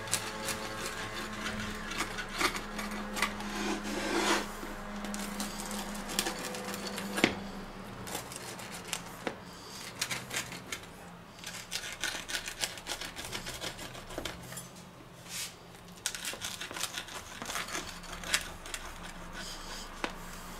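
Pizza wheel cutter rolling and pressing through a baked pizza crust on a wooden board: irregular crunching, rubbing and clicking strokes as the pizza is cut into slices.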